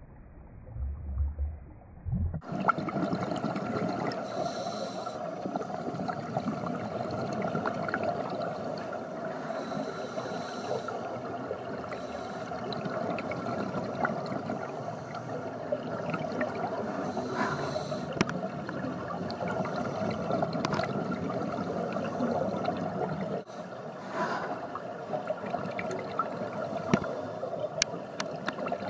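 Underwater sound of scuba divers breathing through their regulators: a steady bubbling, gurgling wash of exhaled bubbles with scattered clicks. The first two seconds are quieter and more muffled before the sound opens up.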